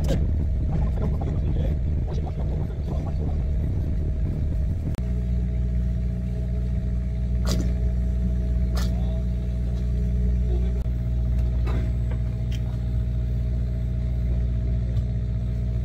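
Low, steady drone of a fishing boat's machinery, which shifts abruptly to a smoother, even hum about five seconds in, with a few faint clicks.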